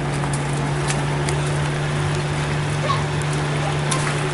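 A small engine-driven water pump running with a steady hum, while floodwater is swept and splashed along the ground with brooms.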